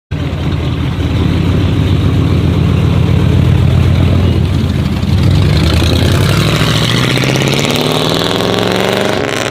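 Tuned car's engine and exhaust running, then revving with a steadily rising pitch over the last few seconds before cutting off.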